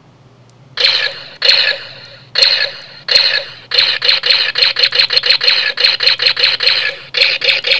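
Gunshot sound effects from a custom sound-effect chip, played through a small 4 cm loudspeaker. About a second in come four single shots, then rapid fire at about six shots a second, broken by a short pause near the end.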